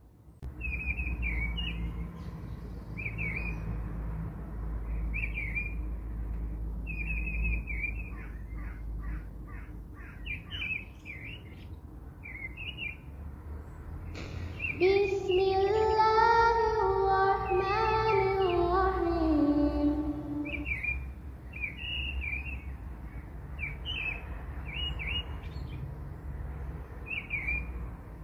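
Birds chirping: short high chirps repeat throughout over a low steady rumble. About halfway through, a louder, longer pitched call with several overtones is held for about six seconds and steps down in pitch before it stops.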